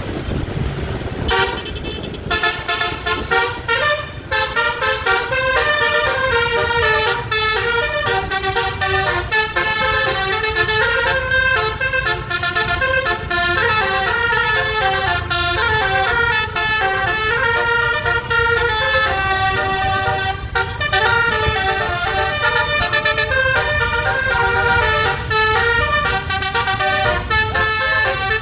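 Basuri "telolet" musical air horn with twelve trumpets on a coach bus, playing a fast melody of many short notes stepping up and down. It starts about a second and a half in and keeps going, over a low rumble.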